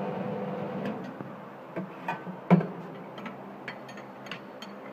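Samosa making machine humming steadily, the hum dropping after about a second, with a series of sharp metal clicks and knocks from the machine being worked on. The loudest knock comes about halfway through, followed by lighter ticks.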